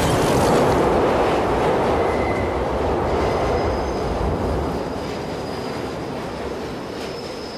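Subway train rushing through an underground station, its loud rumble slowly fading as it goes by. A thin, high wheel squeal comes in about three seconds in and holds.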